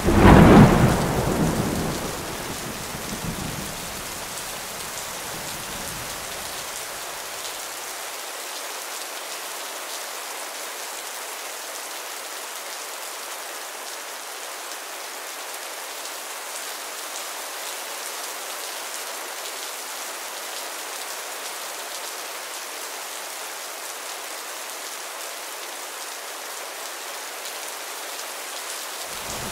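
Steady rain falling, with a loud thunderclap right at the start that rumbles on and dies away over the first seven seconds or so. Another thunderclap begins at the very end.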